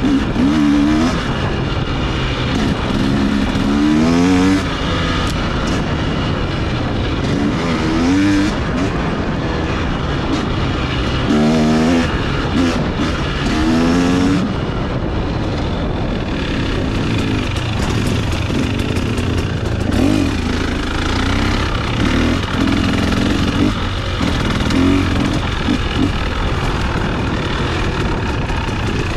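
Two-stroke KTM dirt bike engine revving and falling back over and over as the throttle is worked on the trail, with several quick rises in pitch.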